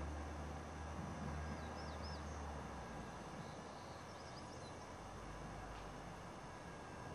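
Faint outdoor hiss with a low rumble that dies away about three seconds in, and two short clusters of small-bird chirps.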